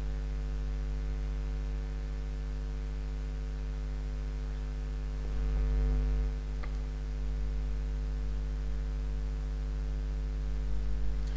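Steady electrical mains hum picked up by the recording, with a faint click about two-thirds of the way through.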